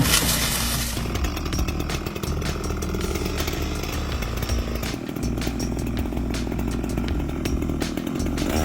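Chainsaw engine running steadily while cutting, with a scattering of sharp crackles over the drone.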